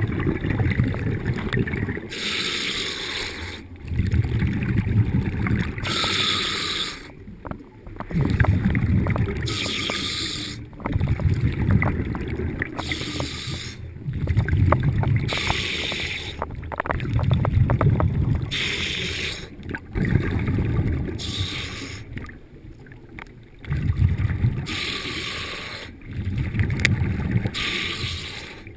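A diver breathing underwater through a diving regulator: a hissing inhale followed by a longer rumble of exhaled bubbles, repeating about every three and a half seconds.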